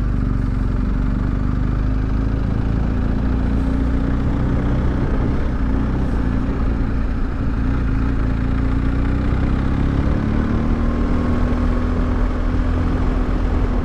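Motorcycle engine running at a steady cruise on the move, its note holding even, with a strong low wind rumble over the microphone.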